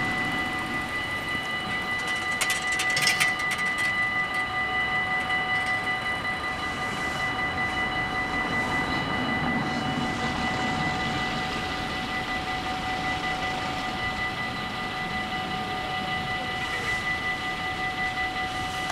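Dutch automatic half-barrier level-crossing bells ringing steadily as a warning while the barriers are down. There is a brief clatter about three seconds in.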